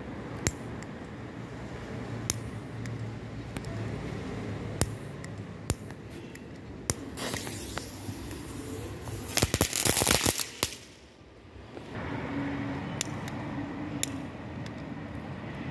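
A small firecracker fizzes as its fuse burns down, then goes off in a quick string of sharp crackling pops lasting about a second. Single clicks come before and after, from a disposable lighter being struck.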